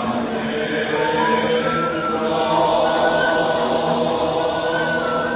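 Javanese classical vocal chorus singing a slow, chant-like melody in long held notes.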